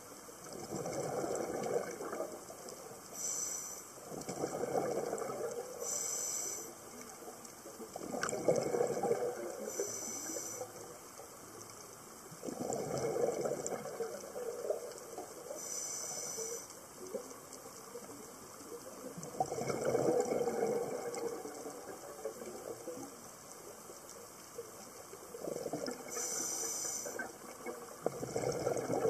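A scuba diver breathing through a regulator underwater. Each breath gives a short hiss on inhaling, then a longer bubbling rush on exhaling, repeating every few seconds, about six breaths in all.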